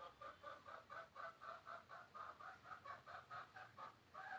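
Faint bird calls: a steady run of short, even, pitched notes, about four a second.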